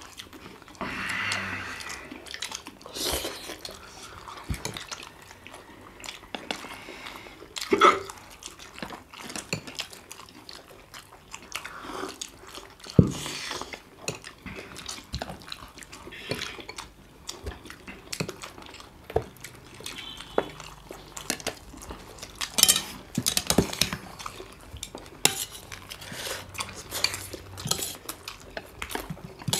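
Eating at a table: chopsticks and a spoon clicking and scraping on stainless-steel plates and bowls, in scattered irregular knocks, with occasional short noisy mouth sounds of eating soupy momos.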